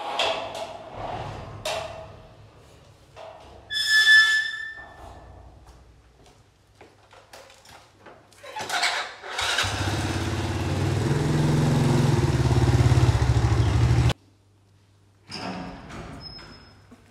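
Clicks and rattles of a metal gate's lock, then a loud metallic ring from the gate about four seconds in. Later a small underbone motorcycle's engine runs for about four seconds, growing slightly louder, and stops abruptly. Near the end a wooden door is opened with a brief squeak.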